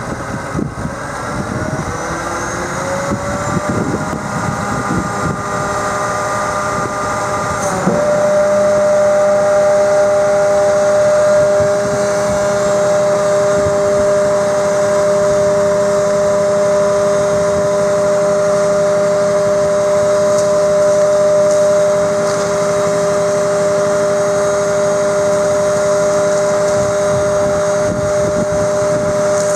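Scania R420 truck engine running at raised revs to drive the hooklift's hydraulic pump as the hook arm lifts. The pitch climbs over the first few seconds, dips briefly about eight seconds in, then settles into a steady, high whine.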